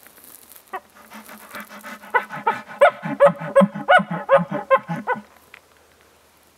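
Bull elk grunting: a run of rapid throaty chuckles, about three a second, over a low steady hum. It starts about a second in, is loudest in the middle, and stops about five seconds in.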